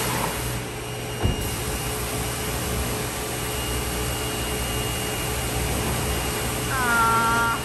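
Steady running hum and hiss of car-wash equipment, pressure-washer pumps driving hand-held spray wands onto a car, with a single knock about a second in and a brief high squeal near the end.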